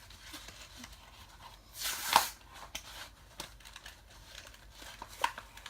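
Plastic blister packaging crinkling and crackling as it is pried open, with one louder tearing crackle about two seconds in.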